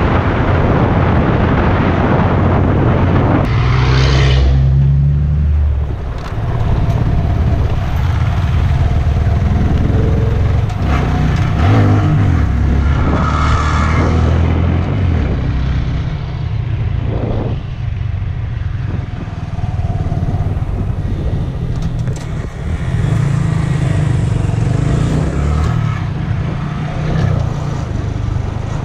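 Honda Grom's 125 cc single-cylinder engine running while being ridden, its note rising and falling several times with throttle and gear changes.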